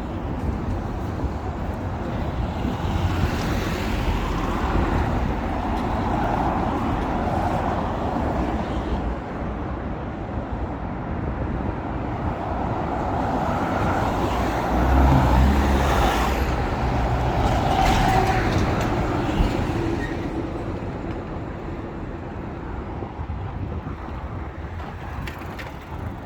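Street traffic passing: a steady rumble of road noise, with a heavier engine swelling loudest about halfway through as a vehicle goes by, then easing off.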